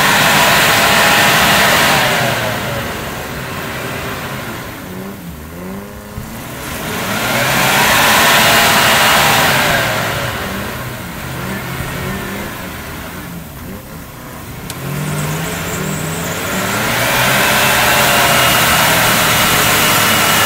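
Land Rover engine revving hard under load in three long surges, its pitch rising and falling with each, as it pulls a towed Suzuki through deep mud. The tyres churn the mud as it goes.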